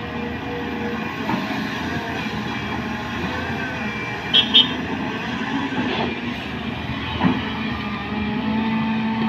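Volvo crawler excavator's diesel engine and hydraulics running steadily under working load as it swings a loaded bucket to a dump truck, empties it and swings back. Two short sharp sounds come about four and a half seconds in as the bucket empties, with a smaller knock a little after seven seconds.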